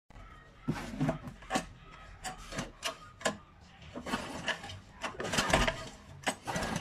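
A screwdriver clicks and scrapes against the screws of a GX160-type small engine's recoil starter cover, with irregular knocks as the cover is handled. A longer, louder scrape comes a little past halfway.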